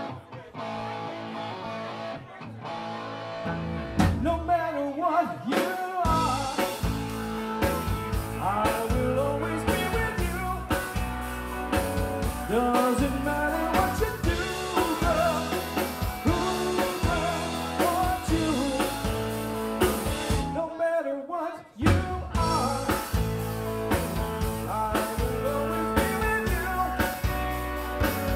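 Live rock band playing: electric guitars, bass and drum kit with a lead vocal. The full band with drums comes in about five seconds in after a quieter start, stops briefly about twenty-one seconds in, then plays on.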